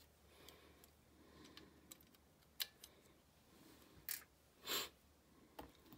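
Faint, scattered light clicks and taps of small metal carburetor linkage parts being handled and set into an enamel parts tray. The loudest is a short rattle about three-quarters through.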